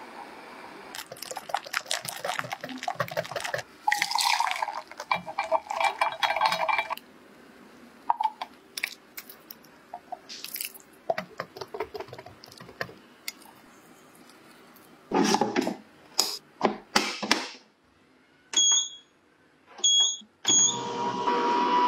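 A run of kitchen preparation sounds: clicks, scrapes and liquid sounds of utensils in a ceramic pot and a glass bowl as milk and mango purée are mixed. Near the end an ice cream maker's control panel beeps three times as its buttons are pressed, and then the machine starts running with a steady hum and tone.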